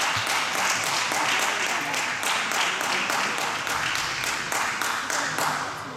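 Spectators clapping and applauding between points in a table tennis match, the clapping dying away near the end.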